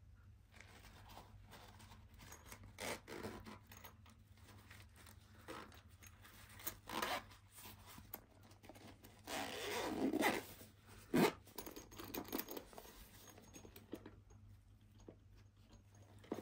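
Hands handling an electric shaver and its soft travel case: scattered short rustles and scrapes, a longer scraping run about ten seconds in, then a single sharp click just after, the loudest sound here.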